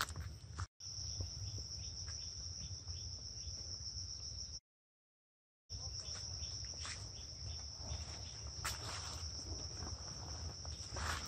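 Steady high-pitched insect drone in tropical jungle, with scattered soft rustles and footfalls on leaf litter. The sound drops out completely for about a second midway.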